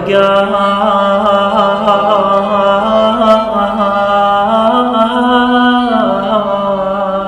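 A man's voice singing one long held vowel of an Iraqi sung poem, the pitch turning in small ornaments, stepping up a little past the middle and dropping lower about six seconds in.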